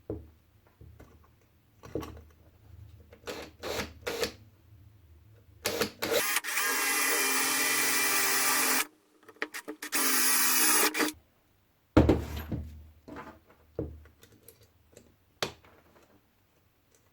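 Electric drill running in two bursts, a longer one of about two and a half seconds and a shorter one of about a second, boring a small hole from the outside into the base of a neon novelty lamp. Clicks and knocks of handling before and after.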